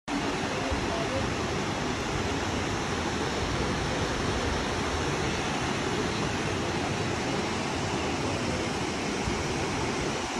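Steady rushing of a large waterfall: an even, unbroken noise of falling water.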